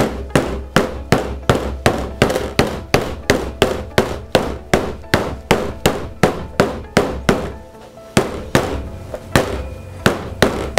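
Hammer tapping the fabric-wrapped, stapled edges of a wooden canvas frame in rapid, evenly spaced strikes, with a short pause about three quarters of the way through.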